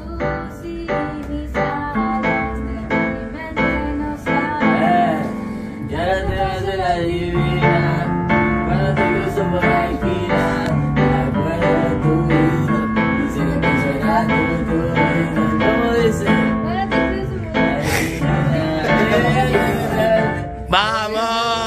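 Electronic keyboard playing chords and a held bass line over a steady beat, with a boy's voice singing along at several points.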